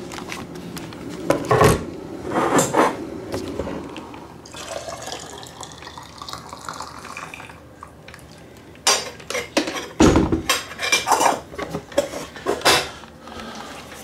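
A few knocks from the kettle being handled, then hot water poured from an electric kettle into a teapot as a steady hiss for about three seconds. A run of sharp clinks and knocks of crockery follows.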